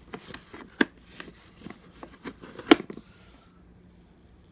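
Hands handling small plastic parts of a screwdriver bit set: a string of irregular clicks and rattles over about three seconds, the loudest sharp click near the end, then quiet.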